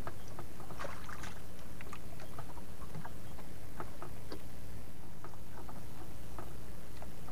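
Steady low rumble aboard a small fishing boat at sea, with scattered small knocks, taps and splashes as a handline is worked.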